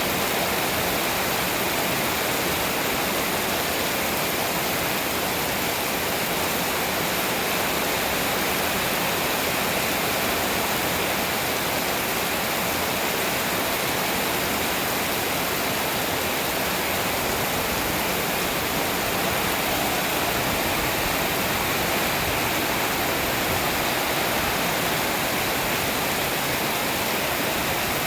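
Heavy storm rain pouring down: a loud, steady, even hiss with no breaks.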